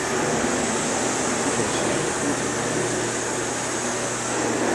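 Steady hiss with a low hum underneath, unbroken, with no distinct events.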